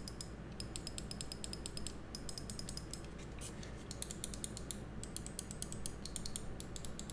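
G-Wolves Skoll SK-L3360 gaming mouse buttons clicking, the side buttons and then the main buttons, in quick runs of light, sharp clicks with short pauses between runs.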